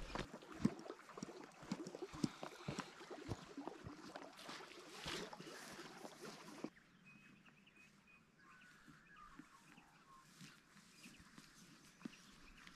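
Footsteps rustling through tussock grass, with irregular knocks and scuffs close to the microphone. They stop abruptly about two-thirds of the way in, leaving near silence with a few faint bird chirps.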